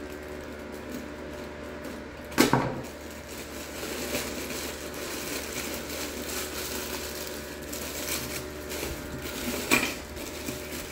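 Grey plastic mailer bag crinkling and rustling as it is cut open with scissors and torn apart, and cellophane-wrapped toys are pulled out of it. Two sharp loud crackles, one about two seconds in and one near the end.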